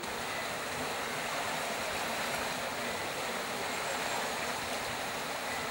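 Floodwater from the overflowing Gouessan river rushing noisily, a steady, even sound of fast-flowing water.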